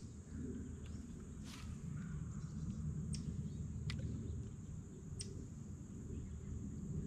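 Faint open-air ambience on a lake: a steady high-pitched insect drone, a low rumbling noise underneath, and a handful of sharp clicks scattered through.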